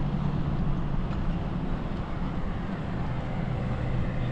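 Steady rolling noise of a bicycle ride along an asphalt path: tyre noise with wind on the microphone and a low steady hum, with no distinct events.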